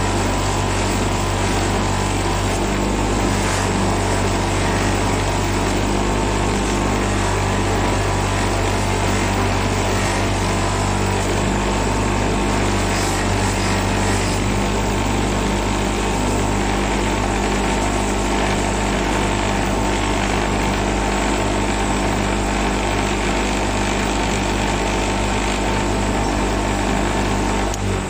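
Electric bench grinder running steadily with a low motor hum, its buffing wheel spinning while a small brass piece is held against it for polishing.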